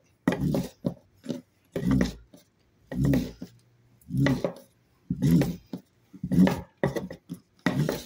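A fire roll being rolled hard under a wooden board on a plywood tabletop. The board makes a rhythmic rubbing stroke about once a second, working the roll hot by friction to try for an ember.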